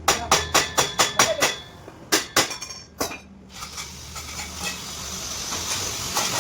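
A hammer striking metal, about ten sharp ringing blows: seven quick ones at roughly four a second, then three more spaced out. After about three and a half seconds a steady high hiss sets in and grows slightly louder.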